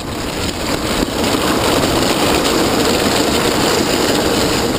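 Steel ball-bearing wheels of home-built downhill carts rolling fast on asphalt: a loud, continuous grinding rumble that builds over the first second and then holds steady.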